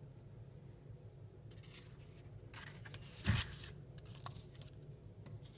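Rustling and light scraping as a cigar box and its contents are handled, with a short knock a little past halfway.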